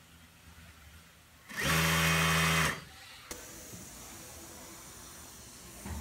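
Industrial high-speed single-needle sewing machine running a short burst of stitching, about a second long, with a steady pitched whine; a single click follows shortly after it stops.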